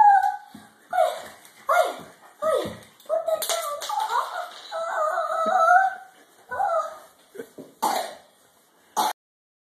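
A voice making short, gliding, wordless sounds, some sliding sharply down in pitch, with two sharp smacks near the end before the sound drops away.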